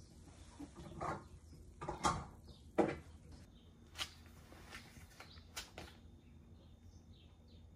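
Several separate knocks and clatters of dishes being handled on a kitchen counter, the loudest nearly three seconds in; faint bird chirps come in over the last second or so.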